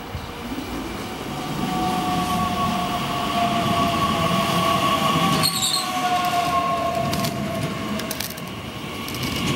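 Bombardier Talent 2 electric multiple unit pulling into a station platform and braking: its electric drive whines in two tones that slowly fall in pitch as it slows, over the rumble of wheels on the rails. A brief high squeal comes about halfway, and a run of sharp clicks near the end.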